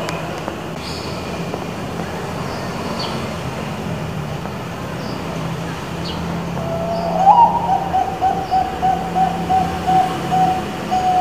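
Perkutut bangkok (Thai-bred zebra dove) cooing. About seven seconds in it gives a loud rising opening note, then a quick string of short coos at about four or five a second, ending in a held note. A steady low rumble runs underneath.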